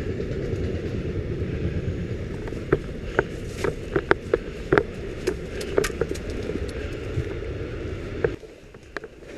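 Scattered airsoft gun shots: sharp irregular clicks, about one or two a second and of varying loudness, over a steady low rumble that cuts off suddenly near the end.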